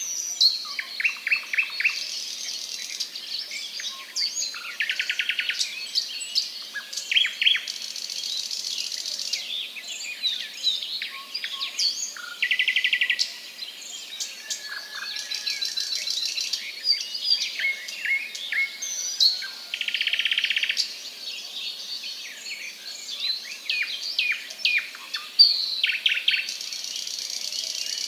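Several birds chirping and calling: many quick, sharp chirps overlapping, with a buzzy trill about a second long returning every few seconds.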